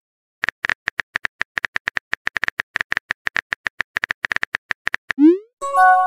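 Phone-keyboard typing sound effect: a quick run of light key taps, about eight a second. Near the end a short rising swoosh plays as the message sends, followed by a brief chime.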